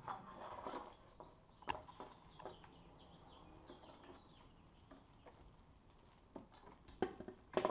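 Scattered light knocks and clicks as the upper intake manifold is set down and seated on a 3.8L V6, the sharpest few near the end. Faint short high chirps sound in the background.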